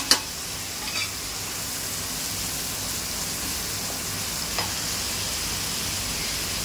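Onions and ground green masala paste sizzling steadily in hot oil in a pan as coriander powder is stirred in with a spatula. Two sharp clicks right at the start, and smaller knocks about a second in and again past the middle.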